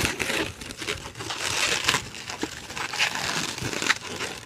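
Inflated latex modelling balloon being handled and twisted, the rubber rubbing and crinkling against itself and the hands.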